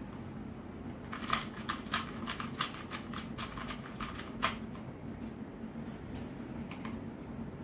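A 2x2 puzzle cube's plastic layers being turned by hand during a solve: a run of quick clicks, fast from about one to four and a half seconds in, then a few scattered ones.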